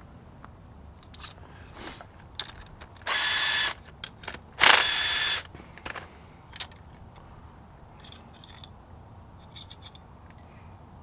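Cordless impact driver hammering in two short bursts about a second apart, the second louder and longer, undoing bolts on a GY6 scooter engine. Light clicks of metal parts being handled come in between.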